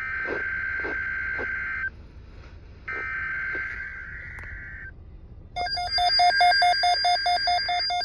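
Two bursts of EAS/SAME digital header data from a NOAA weather radio's speaker, a buzzy two-tone data screech. Each burst lasts about two seconds, with a one-second gap between them. From about five and a half seconds in, a looping electronic beeping melody starts.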